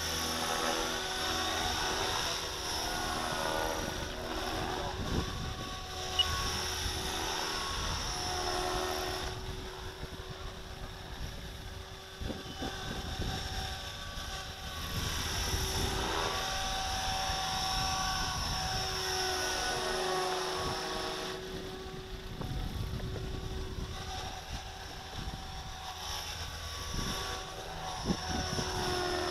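Radio-controlled model helicopter flying aerobatics overhead: its rotor and motor whine glides up and down in pitch again and again as it manoeuvres and passes. A single sharp click about six seconds in.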